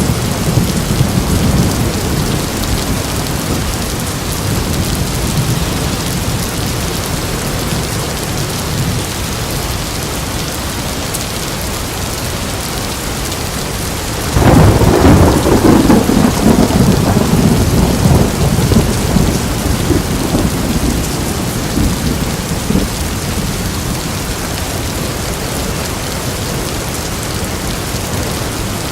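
Thunderstorm: steady rain, with a low thunder rumble easing off over the first few seconds. About halfway through, a sudden loud thunderclap breaks and rolls on, fading over several seconds.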